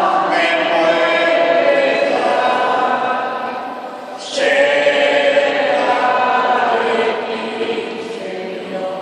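A congregation singing a liturgical hymn together in a large, echoing church, with a short break between phrases about four seconds in before the next line begins.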